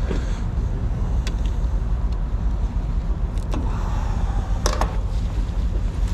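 Steady low rumble of an idling vehicle engine, with a few light clicks about a second in, around three and a half seconds, and near five seconds.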